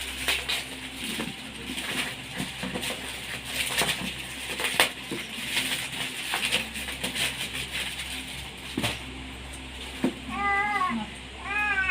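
Plastic gift packaging crinkling and rustling as items are pulled out. Near the end a baby gives two high, rising-and-falling squealing cries.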